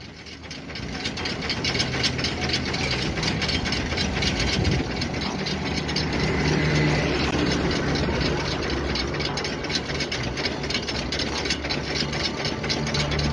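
Tata truck's diesel engine idling with a fast, even clatter. It grows louder over the first couple of seconds, then runs steadily.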